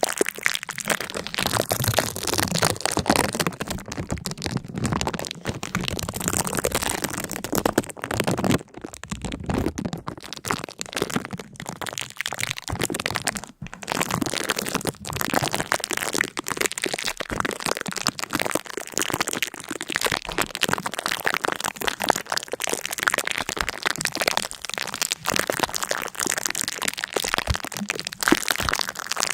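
Continuous dense crackling and crunching: many small sharp cracks in quick succession, with a couple of brief lulls about a third of the way in and again near the middle.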